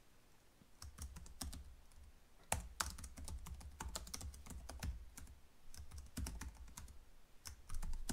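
Typing on a computer keyboard: irregular keystrokes that start about a second in.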